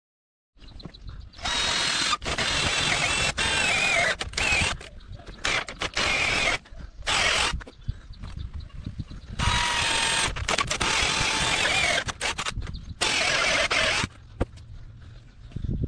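An electric power tool run in repeated bursts, starting about half a second in, stopping and starting many times, its motor whine shifting in pitch as it works.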